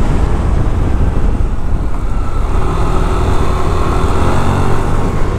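Yamaha Mio Aerox 155 scooter's single-cylinder engine running steadily while riding at speed, with wind rumble on the microphone.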